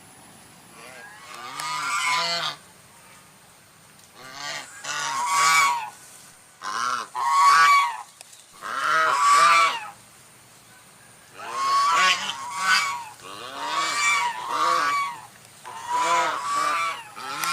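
Domestic geese honking: about a dozen repeated calls in bursts, with short pauses between.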